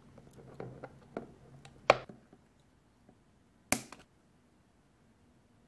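Wire cutters snipping off the excess legs of LEDs poking through a plastic housing. A few light clicks come first, then two sharp snips, about two seconds in and again nearly four seconds in.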